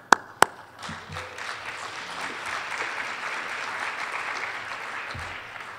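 Audience applauding, building up about a second in and dying away near the end, with a couple of sharp knocks at the very start.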